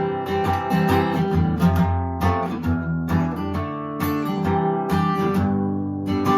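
Acoustic guitar strumming chords in a song's instrumental passage, with no voice; the chord changes about every second.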